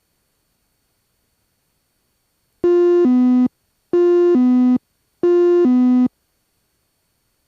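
Electronic two-tone chime, a higher note dropping to a lower one, sounded three times about a second and a half apart, typical of an aircraft avionics alert tone.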